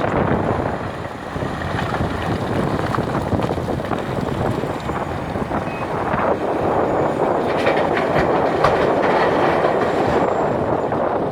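Hitachi 470 excavator at work, its diesel engine running with a continuous heavy rattling and clattering of the machine. The noise grows somewhat louder about halfway through.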